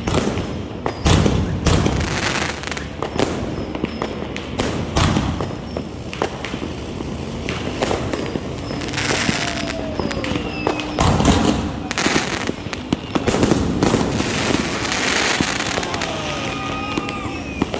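Consumer New Year fireworks from a family firework package going off: repeated sharp bangs and crackling throughout.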